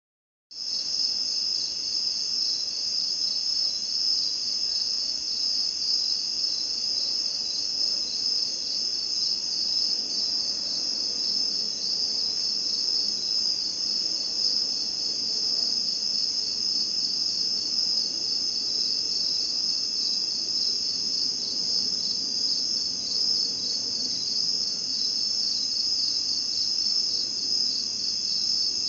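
A dense, steady chorus of night-singing insects, many calling at once in a high-pitched, finely pulsing trill. It comes in abruptly about half a second in.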